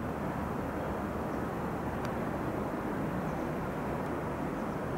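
Steady outdoor background rumble: an even low noise with a faint low hum underneath and no distinct events.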